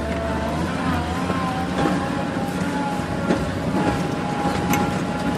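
Vehicle driving slowly, its drivetrain giving a steady whine that drifts slightly in pitch, with a few knocks from the body or suspension.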